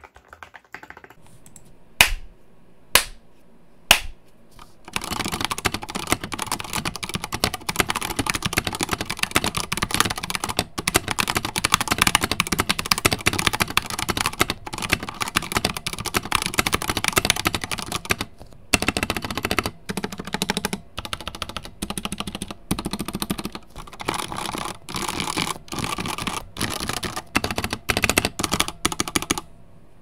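Typing on a GT68 65% mechanical keyboard with Outemu Red linear switches. A few single keystrokes come first, then fast continuous typing, and from about two-thirds of the way in the typing comes in short bursts with brief pauses.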